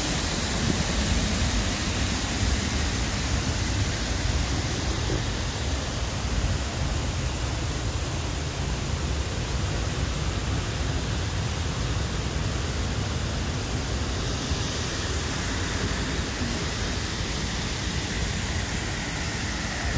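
Steady, even rushing noise, heaviest in a low rumble, holding the same level throughout.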